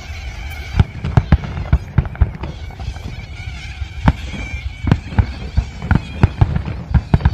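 Fireworks display: aerial shells bursting in a rapid, irregular series of sharp bangs, thickest a second or so in and again through the second half.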